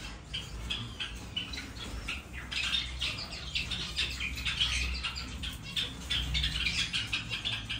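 A flock of Java sparrows and other small aviary finches chirping and twittering continuously, a dense chatter of short high calls, over a low steady rumble.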